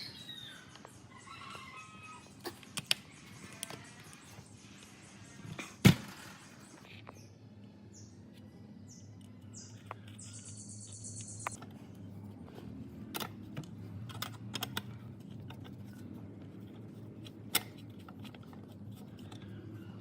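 Scattered clicks and knocks of hand work on parts, with one sharp knock about six seconds in, over a low steady hum; birds chirp during the first two seconds.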